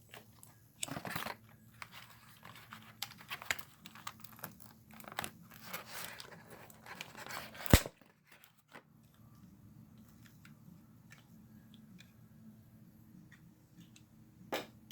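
Plastic and cardboard toy packaging being torn and crinkled open, with tape pulled away, in a run of irregular crackling and tearing, then one sharp loud snap about eight seconds in. Only faint small clicks of handling follow.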